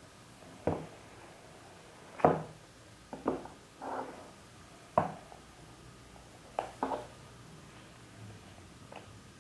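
Cardboard retail box of a Samsung Galaxy A51 phone being handled and opened: scattered short knocks and scrapes, about eight in all, as the lid comes off and the box is set down and held on the table.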